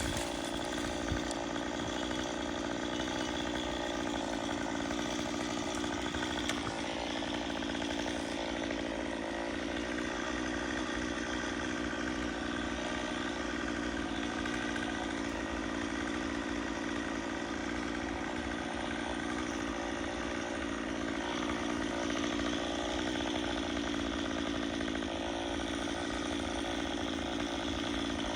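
An engine running steadily at constant speed, with no revving or cutting.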